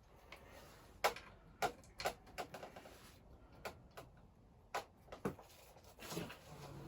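Scattered sharp clicks and taps of hand tools and parts being handled on a motorcycle, about seven at uneven intervals, with a faint low hum coming in near the end.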